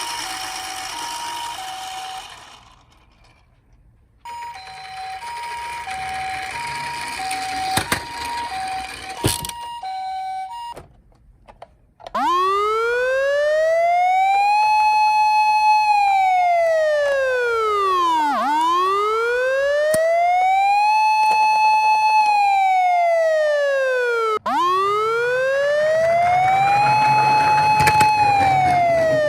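Ambulance two-tone 'pee-poh' siren, stepping back and forth between two pitches over a rushing noise. It breaks off twice and is cut by a couple of clicks. About twelve seconds in, a police car wail siren takes over, rising and falling slowly in three long sweeps about six seconds apart.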